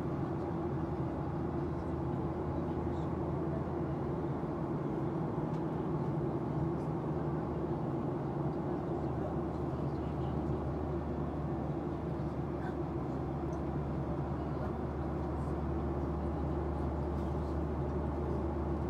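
Steady cabin noise of a Boeing 737-800 airliner after takeoff: the even drone of its CFM56-7B turbofan engines and airflow over the fuselage, with a low steady hum underneath, heard from a window seat.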